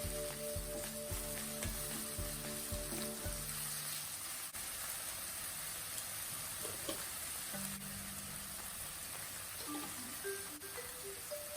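Food sizzling in hot oil in a frying pan, a steady hiss, with light stirring. Soft background music plays for the first few seconds and comes back near the end.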